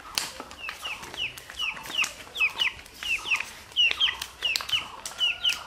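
Chickens calling: a quick run of short, high, falling chirps, several a second, with scattered sharp taps in between.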